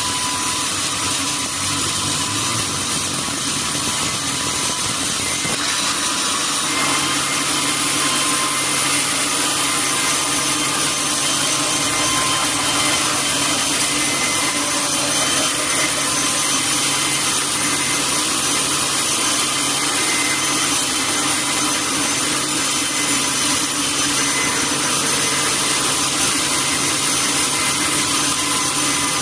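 Sawmill saw running steadily through a durian log, a loud continuous hiss with a low hum that steps up about seven seconds in.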